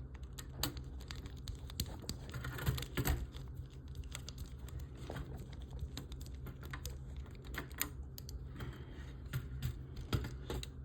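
Small screwdriver and tiny screws clicking and scraping as screws are worked into the frame of a scale model kit. The sound is a run of irregular light ticks and scrapes, busier in a couple of spots.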